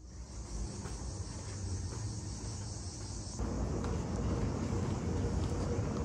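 Insects chirring steadily in a high, even hiss over a low outdoor rumble. About three seconds in, the insect sound drops away and a broader, duller ambient noise with a faint steady hum takes its place.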